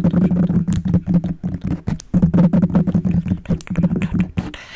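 A woman's voice humming two long, low, steady notes, each about two seconds, with a short break between them, and quick crackly clicks over the hum.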